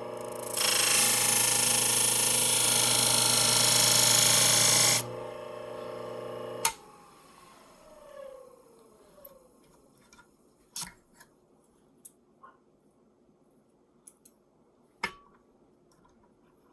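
Steel shear blade ground against the spinning abrasive plate of a motor-driven sharpener: a loud, steady grinding hiss for about four seconds over the motor's hum. Then a click, and the motor's hum falls in pitch as the plate spins down. A few light clicks follow.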